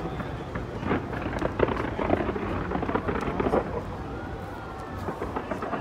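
Fireworks display: a quick, irregular run of bangs and crackles over a continuous low, thunder-like rumble.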